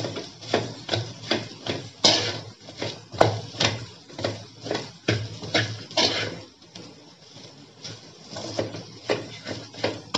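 Metal spatula scraping and knocking against an aluminium kadai as sliced okra is stirred in it, in quick strokes about three a second. The strokes ease off for a couple of seconds a little past the middle, then pick up again.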